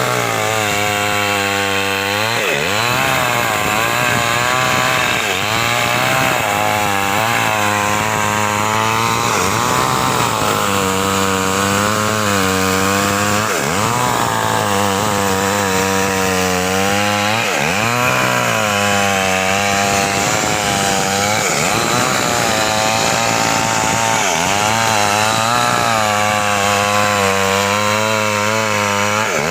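Chainsaw running hard and cutting through wood, its engine pitch sagging under load and climbing back again and again, with several deep drops in revs.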